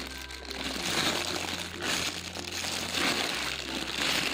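Crinkling and rustling in several swells as a jumbo donut squishy toy is handled and squeezed, over a low steady background hum.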